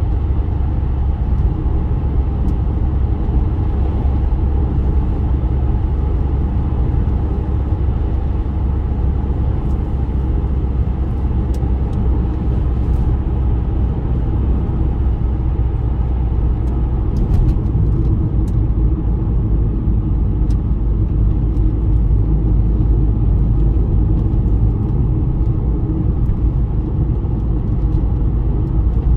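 Steady low rumble of a moving road vehicle, the continuous road and engine noise of travel by car.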